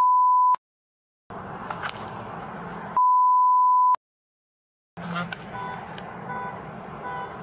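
Two steady 1 kHz censor bleeps, each about a second long and each followed by a second of dead silence where the audio is muted. Between them and after the second one there is low background noise with a few clicks and, near the end, short repeated electronic beeps.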